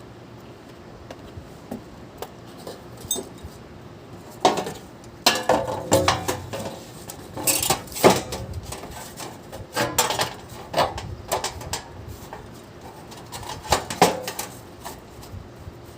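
Hard metal objects clinking and clattering in an irregular run of sharp knocks, starting about four seconds in and stopping shortly before the end.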